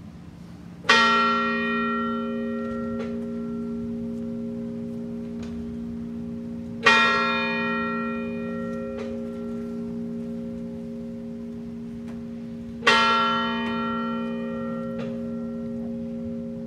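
A large bell tolling slowly, struck three times about six seconds apart, each stroke ringing on long enough to overlap the next: a funeral toll.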